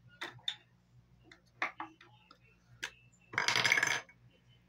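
Small hard clicks and taps of makeup containers and tools being handled, then a loud clatter lasting about half a second near the end.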